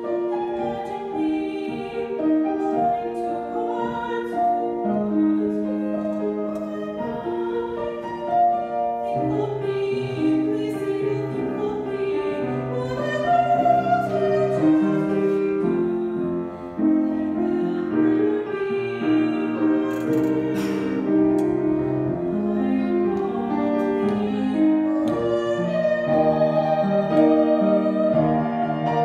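A young woman singing solo in a classical style with piano accompaniment.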